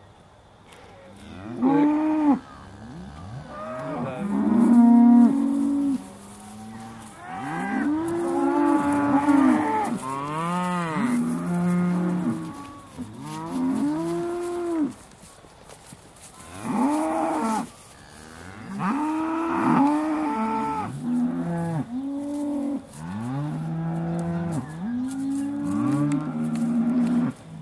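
Aussie Red dairy cows mooing over and over, starting about a second and a half in. The calls often overlap, and each rises and falls in pitch.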